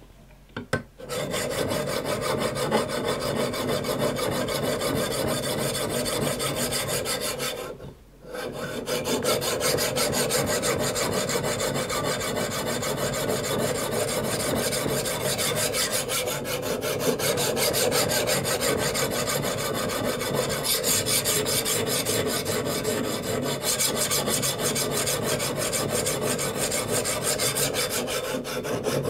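Sharpening abrasive rubbing steadily along a steel knife's edge, grinding the edge bevel, with one short pause about eight seconds in.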